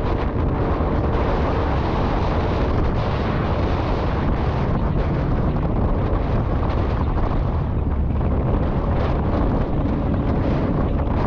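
Heavy wind rushing over a GoPro Hero 5 Black's microphone on a moving motorcycle at highway speed, a steady low rumble with the bike's engine sound buried in it.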